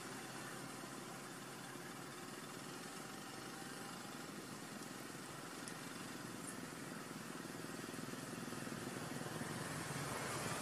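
Faint, steady background hum and hiss with a low engine-like drone and no distinct events.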